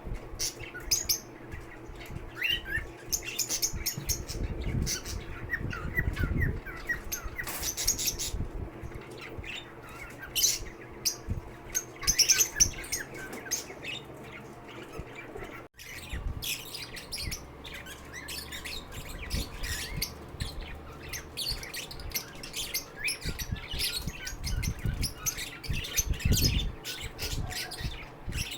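Lovebirds chirping and squawking, a dense run of short, high calls overlapping one another, with a momentary drop-out about halfway through.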